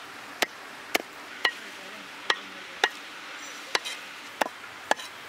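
Cleaver chopping squid on a wooden log chopping block: about nine sharp knocks of the blade striking the wood, roughly two a second, at a slightly uneven pace.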